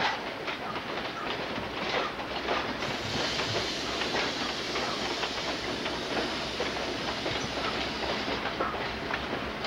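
A passenger train hauled by two EMD G12 diesel locomotives running by, a low engine rumble under the clickety-clack of wheels over rail joints. A steady hiss joins in about three seconds in and drops away near the end.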